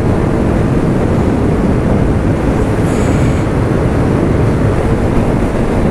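Steady rush of wind and road noise from a moving motorcycle, heavy in the low end. A faint, brief high-pitched tone comes about three seconds in.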